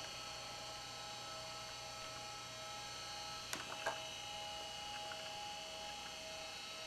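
Steady electrical hum with a high whine of several fixed tones over faint hiss, and a few faint clicks about halfway through.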